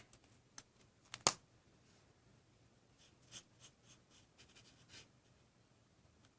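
Stampin' Blends alcohol marker colouring on stamped cardstock: faint short scratchy strokes of the marker tip, with a sharp click about a second in.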